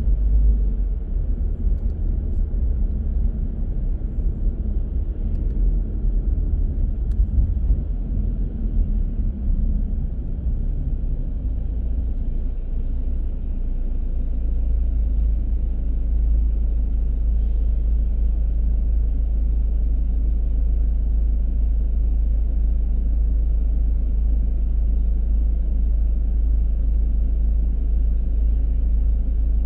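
Low, steady road and engine rumble of a car being driven, which evens out and grows slightly louder about halfway through.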